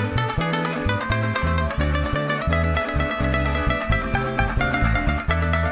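Llanera band playing an instrumental passage: harp, bandola and cuatro plucked over an electric bass line in steady pulses, with maracas shaking a fast even rhythm.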